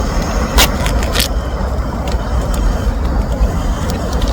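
Steady low outdoor rumble, with two sharp clicks about half a second and a second in.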